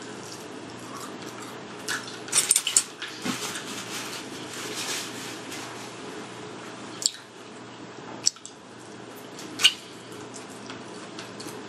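Someone eating tandoori chicken on the bone: chewing with wet mouth noises and sharp smacking clicks, a quick run of them about two to three seconds in and single ones later.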